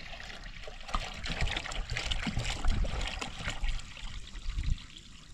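Water pouring from a plastic jerrycan into a metal cooking pot: a steady trickling, splashing stream into the water already in the pot.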